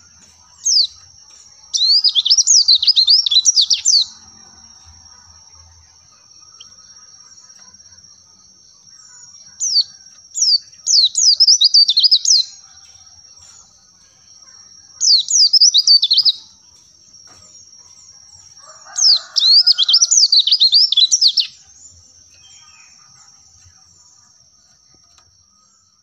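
White-eye (pleci) song: four bursts of rapid, high-pitched twittering, each one to three seconds long, over a thin steady high whine.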